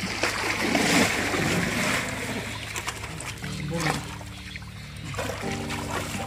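Pond water splashing and churning as a man wades in and grabs a floating plastic-bottle fish trap with a caught fish thrashing at the surface, loudest in the first two or three seconds. Background music runs underneath.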